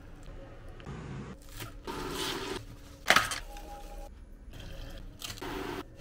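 Kitchen sounds in quick succession: water pouring from a kettle onto noodles in a bowl, then food being handled, with one sharp knock about three seconds in.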